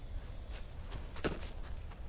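Faint handling sounds: a few soft knocks and rustles as a plastic lighter is put back into a leather pouch full of small kit, with one clearer knock a little past halfway.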